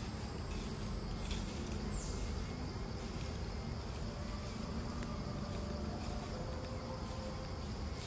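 Outdoor ambience of insects buzzing steadily over a low rumble, with a few short, high sliding chirps in the first two seconds.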